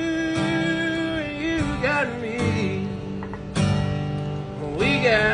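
Background pop song with acoustic guitar strumming and a held, sliding vocal line.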